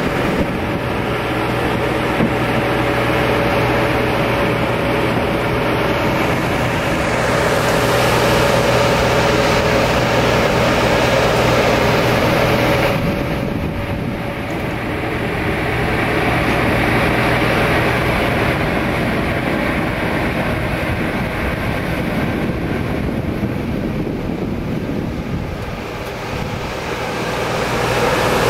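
Steady engine noise on an airport apron, from running aircraft engines and ground equipment: a continuous low drone with a steady hum above it. About halfway through, the sound changes and the low drone drops out.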